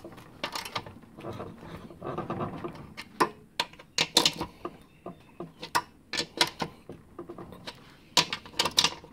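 Metal clicks and knocks of a long-shafted socket tool working the nuts around the crankshaft on the underside of a Victa mower deck, coming irregularly as the tool is fitted and turned.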